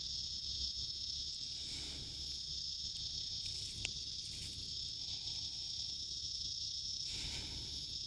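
Steady, high-pitched chorus of insects calling without a break, with a single sharp click about four seconds in.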